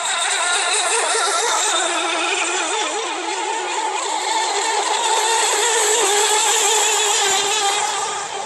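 Electric RC racing boats running flat out, their motors and propellers whining with a pitch that wavers up and down as they race.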